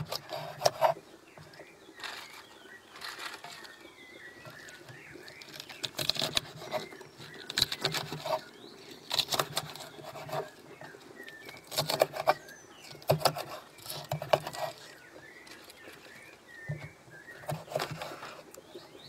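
Kitchen knife chopping pitahaya (dragon fruit) flower pieces against a wooden cutting board, in short runs of quick cuts with pauses between.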